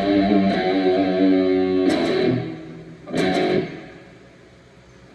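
Morris Hurricane electric guitar being played in a sound check: ringing notes and chords, with two sharp strummed chords about two and three seconds in. The last chord rings out and dies away about four seconds in.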